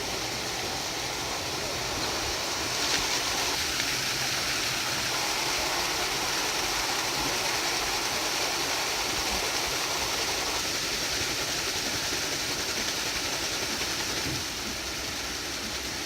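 Water-powered sawmill running: rushing water and turning mill machinery make a steady noise, with a single knock about three seconds in and a drop in level near the end.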